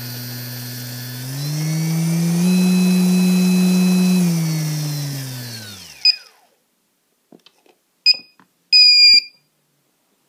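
Brushless outrunner motor driven by a HobbyKing F40A ESC flashed with SimonK firmware, spinning with no propeller. Its steady electric whine rises in pitch as the throttle goes up about a second in, holds, then falls away as the motor spins down and stops about six seconds in. Then come three short electronic beeps, the last one longer.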